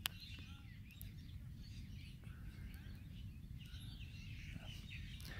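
Faint open-air ambience: a steady low wind rumble on the microphone, with scattered faint bird chirps.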